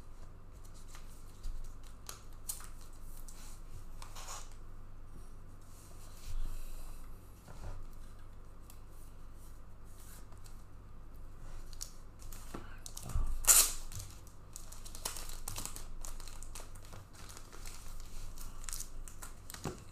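Trading-card packaging being torn and crinkled open, with scattered clicks and handling noises; the loudest rustle comes about two-thirds of the way through.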